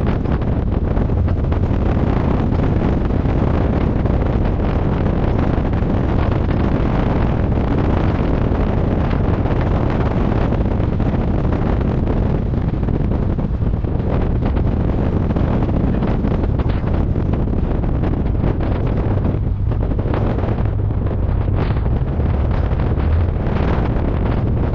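Wind rushing over the microphone on a moving trike at road speed, over the steady running of the trike's engine. The sound is loud and continuous, with a heavy low rumble.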